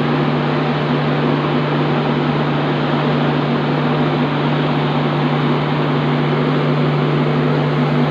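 Diesel generator set of an Indian Railways LHB generator car running steadily, a loud constant drone with a steady low hum.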